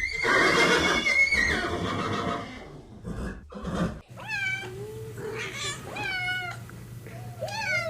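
Animal calls: a loud, rough call in the first two seconds or so, then, after a sudden cut about four seconds in, a series of short high-pitched cries, each falling in pitch.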